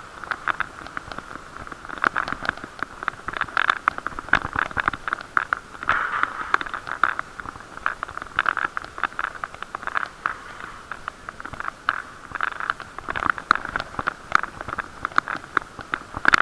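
Irregular knocking and rattling from a moving bicycle's ride vibration, over a steady muffled rumble, as picked up by an action camera sealed in a waterproof case.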